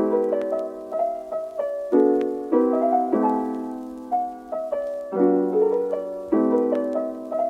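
Background piano music: a gentle, slow piece of chords and single notes that ring and fade.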